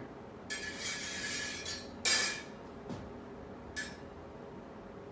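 Steel smallsword blades scraping along each other as they engage, then a sharper clash of metal about two seconds in, and a short scrape near the end.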